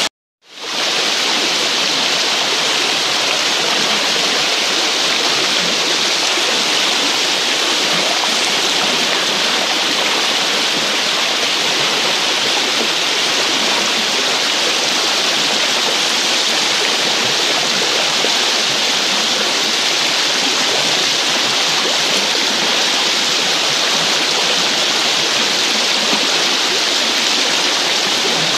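Shallow, fast-flowing river rushing steadily over rocks, a loud even noise. It cuts out for a moment at the very start.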